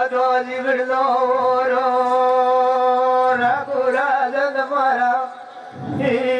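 Voices chanting a Gavri song in long held notes. The chant breaks briefly a little after five seconds, and a low thump comes just before it resumes.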